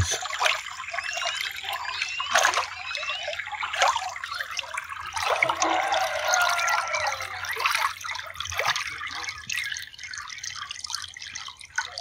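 Natural spring water trickling and gurgling over rocks in a shallow stream, with small drips and splashes.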